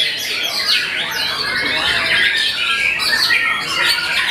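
Several caged white-rumped shamas (murai batu) singing at once, a dense, unbroken mix of overlapping quick whistled sweeps and chattering phrases.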